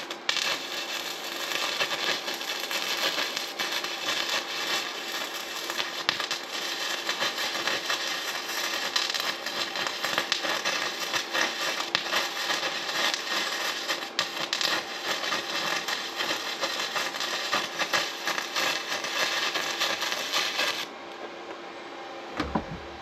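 MIG welder with 0.8 mm wire running a continuous crackling weld bead for about twenty seconds, then cutting off suddenly as the trigger is released.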